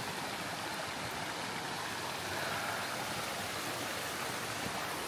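Shallow rocky stream running over stones and small cascades, a steady sound of flowing water.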